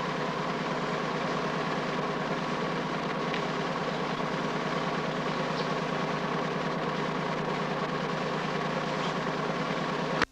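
Steady mechanical whirr and hum from a home-movie sound camera's motor, with no other sound over it. It cuts off suddenly at the very end as the film stops.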